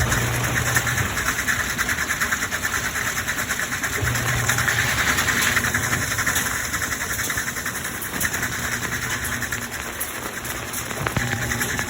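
Midea 13 kg front-load washing machine running its spin, with a fast rattling whir and a low motor hum that starts and stops every few seconds: this machine pulses its spin throughout.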